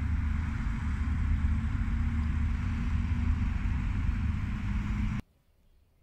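Steady road traffic rumble from a nearby street, which cuts off abruptly about five seconds in.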